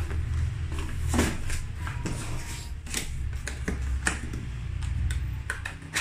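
Cardboard box being handled and closed: a string of scrapes, taps and knocks as the flaps and inner insert are pushed into place, over a steady low hum.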